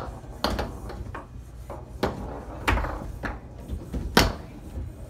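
Foosball table in play: a handful of sharp, irregular knocks as the ball is struck by the rod figures and hits the table, the loudest about four seconds in.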